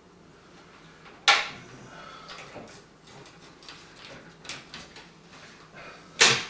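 Cables and connectors being handled inside a PC case: two sharp plastic-and-metal clicks, about a second in and near the end, with lighter ticks and rustling in between.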